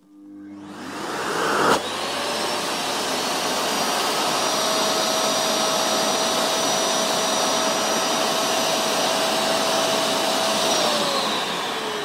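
Makita DVC150L hybrid vacuum cleaner running on mains power. Its motor spins up just after switch-on, with a single knock about two seconds in as a vacuum-gauge disc is pressed over the hose inlet. It then runs with a steady whine while the sealed inlet's suction is measured, and the whine falls in pitch near the end.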